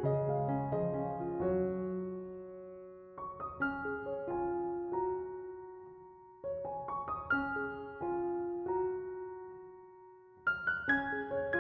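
Soft background piano music: gentle chords and melody notes that ring out and fade, with new phrases starting about three seconds in, about six and a half seconds in, and near the end.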